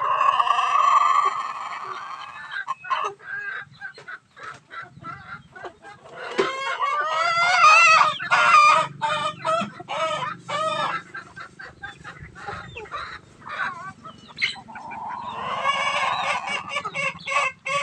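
Chickens clucking and calling, with a rooster crowing: one long crow at the start and another near the end, with a busy stretch of short clucks and calls in the middle.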